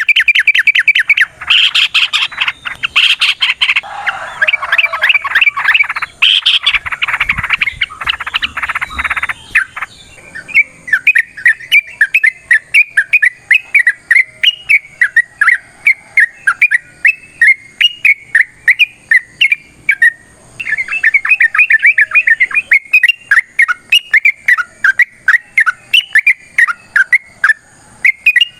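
Yellow-vented bulbuls calling in long, rapid chattering series. For about the first ten seconds the notes are dense, loud and overlapping; after that comes a steady run of quick repeated notes, about five or six a second, with a short break midway.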